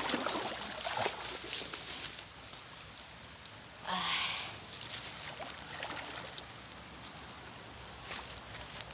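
Water sloshing and splashing as someone wades, with scattered small clicks and rustles in the first two seconds and a louder splash about four seconds in.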